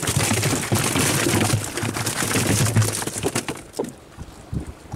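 A basket load of fish tipped into a boat's fish hold: a dense clatter of slaps and knocks as the fish slide and tumble against the hold and each other. It thins out about three and a half seconds in to a few scattered knocks.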